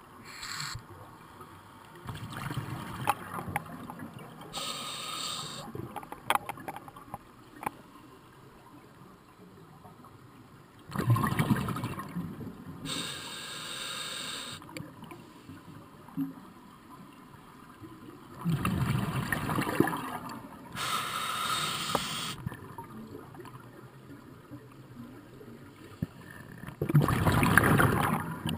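Scuba diver breathing through a regulator underwater: three loud, rumbling bursts of exhaled bubbles roughly eight seconds apart, each followed by a shorter hiss of inhaled air.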